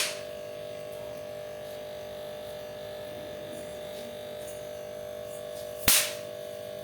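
A small firecracker going off with a single sharp crack about six seconds in, with the fading end of an earlier crack at the very start. A steady hum runs underneath.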